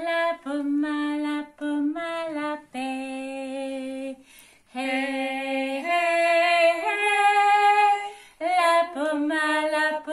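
A woman singing a slow, unaccompanied tune in long held notes and short phrases, with a brief break about four seconds in.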